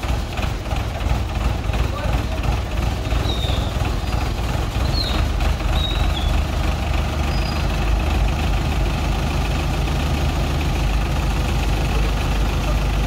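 Diesel engine of an Escorts Hydra 14 mobile crane running steadily as it holds and lifts a car on its hook. The drone grows deeper and louder about nine seconds in.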